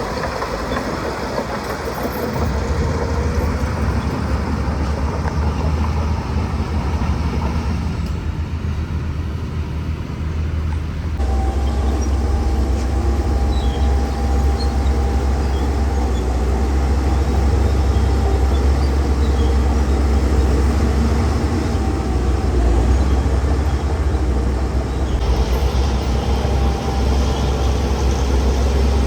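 Crawler bulldozer's heavy diesel engine working steadily under load, with the clatter of its machinery. The sound shifts abruptly a few times as the footage cuts.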